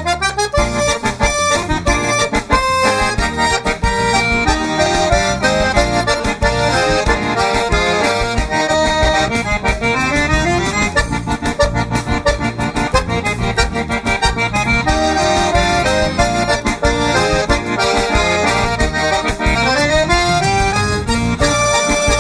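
Piano accordion playing a lively vaneira melody, with left-hand bass and chords, over a band backing track.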